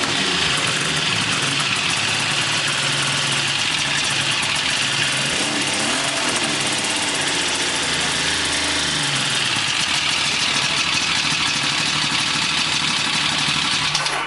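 Two-stroke triple snowmobile engine of about 1200 cc, running steadily at idle through three chrome expansion-chamber pipes.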